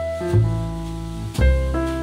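Soft jazzy background music: piano chords over deep bass notes that change about a third of a second in and again near a second and a half.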